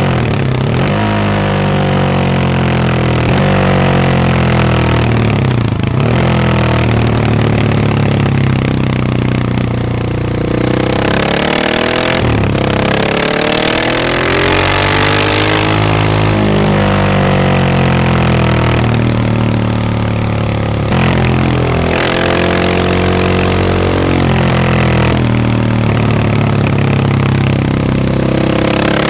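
KTM 690 SMC R single-cylinder engine with a Wings exhaust under way, its pitch climbing under acceleration and dropping off again several times, with gear changes and a longer deceleration about ten seconds in.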